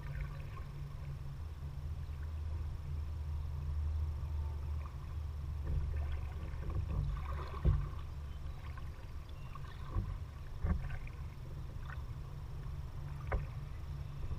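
Kayak being paddled: paddle strokes and water sounds over a steady low rumble, with a few sharp knocks about halfway through and near the end.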